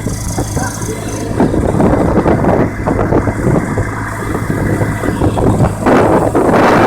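Gyrocopter's engine and propeller running with a steady low hum, under wind noise buffeting the microphone that grows louder near the end.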